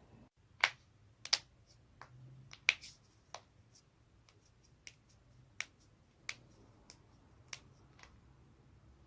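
Human joints cracking: about a dozen sharp, dry pops spaced irregularly, the three loudest in the first three seconds.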